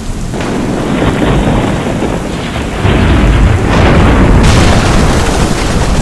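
Thunderstorm sound effect of heavy rain and rumbling thunder, swelling in. It turns suddenly harsher and louder about four and a half seconds in.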